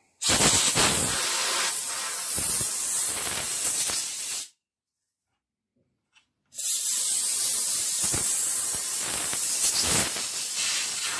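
Compressed-air blow gun blasting out a chainsaw bar: two long hissing bursts of air, each about four seconds, with a silent gap between them.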